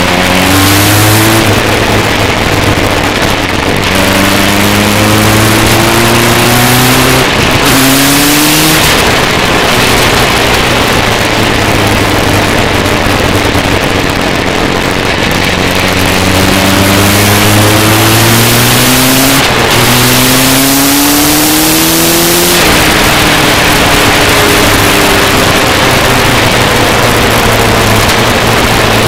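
Motorcycle engine heard from on board the bike, repeatedly rising in pitch as it accelerates and dropping back at each gear change, under a steady rush of wind noise.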